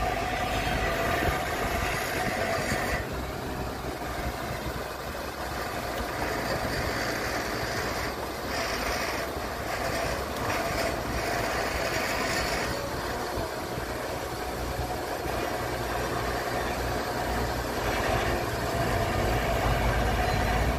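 Diesel engines running steadily: a Komatsu PC120 hydraulic excavator working its grapple, with a farm tractor's engine alongside. A rougher, noisier stretch comes in the middle.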